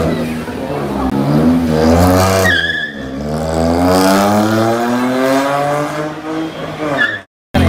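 Volkswagen Polo GT engine and exhaust under hard acceleration, the pitch climbing, breaking off about two and a half seconds in and starting lower before climbing again through a gear change. The sound cuts off abruptly near the end.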